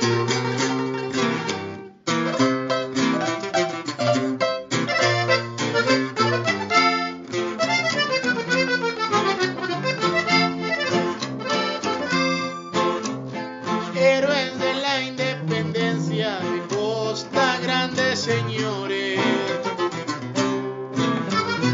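Instrumental corrido led by accordion, with a brief break about two seconds in.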